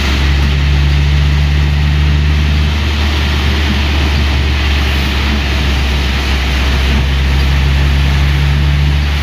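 Engine of a 1970s Mitsubishi Colt running steadily on the move, heard from inside the cab as a steady low drone, under a constant hiss of tyres on the wet road and rain.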